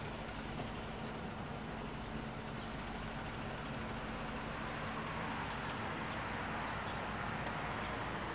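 Heavy diesel truck running as it drives away down the street, a steady low hum that fades out about halfway through, over a steady outdoor hiss.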